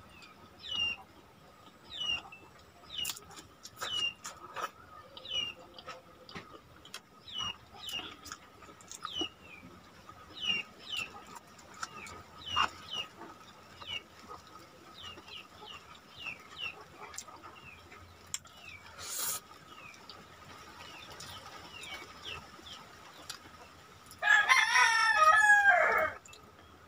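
A rooster crows once near the end, a loud call of about two seconds. Before it, a bird gives short, high, falling chirps about once a second, over soft clicks and smacks of eating.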